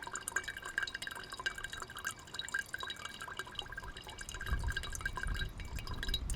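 Water dripping steadily from a camping water filter, a quick run of small plinks of drops falling into the water below. A low rumble joins in about two-thirds of the way through.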